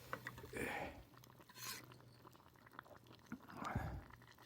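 A person chewing food, with scattered small wet clicks and a couple of short, louder chews.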